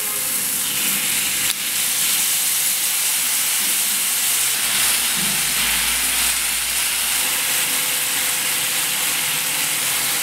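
A marinated T-bone steak sizzling steadily in a hot ridged grill pan, just turned over to sear its second side. There is one brief tap about a second and a half in.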